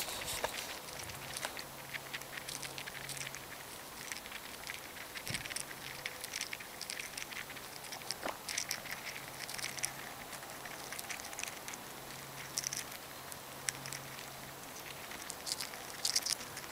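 Chipmunk foraging among black sunflower seeds on a stone, close up: a continual run of light, irregular clicks and crackles as the seed shells are nosed, picked up and shifted about.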